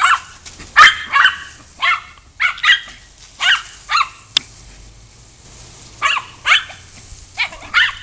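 Small Chorkie (Chihuahua–Yorkshire terrier mix) barking in short, high yaps, about a dozen, often two in quick succession, with a pause a little past the middle, as she chases the spray from a garden hose.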